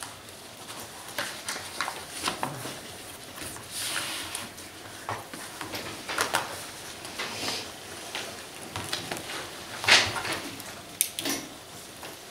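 Scattered rustling of papers and light knocks and clicks on a table, with one louder knock about ten seconds in.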